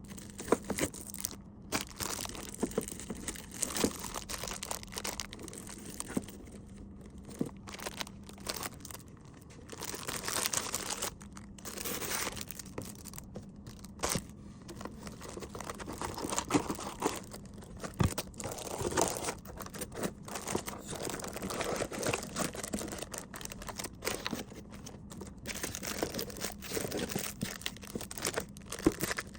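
Packaging crinkling and rustling as small gift items are handled and packed, with many light clicks and taps scattered throughout.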